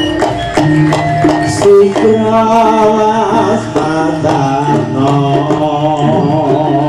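Live Javanese jaranan music: a gamelan-type ensemble with frequent drum strokes under a held, wavering melodic line.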